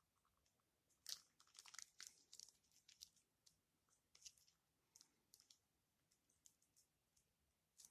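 Faint crackling, crinkling and clicking of hands handling slime-making materials. The sounds come thick and fast for a couple of seconds about a second in, then thin out into scattered clicks.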